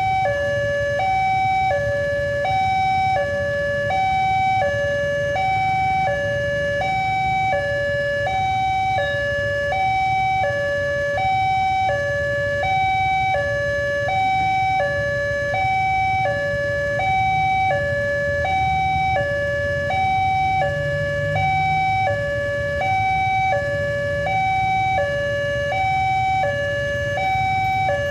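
Railway level-crossing warning alarm: an electronic two-tone signal alternating steadily between a higher and a lower note, about one pair a second, sounding while the barriers are down for an approaching train. A low rumble of idling vehicles lies underneath.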